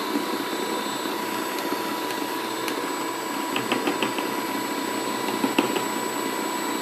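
Electric kitchen mixer running steadily, beating egg yolks and butter, with a few light clicks about halfway through and once more near the end.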